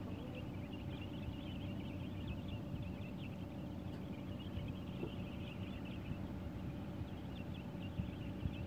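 Shoreline ambience: many small birds chirping and twittering in the distance, over a steady low rumble with a faint hum.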